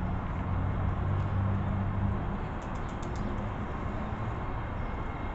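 Outdoor urban background noise with a low, steady engine-like hum that fades away after about two to three seconds, and a few faint ticks around the middle. No train horn sounds.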